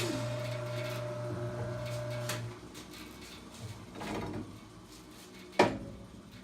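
Rikon 14-inch bandsaw running unloaded with a steady hum just after a cut, stopping about two and a half seconds in. A few knocks follow, the loudest a sharp one near the end.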